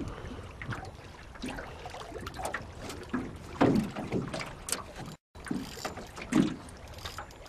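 Water splashing around a small fishing boat with scattered knocks and clicks, as a hooked smallmouth bass is fought at the boat.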